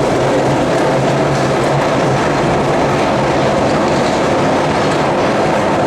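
A train in a railway station hall, running with a loud, steady rumble and a low hum.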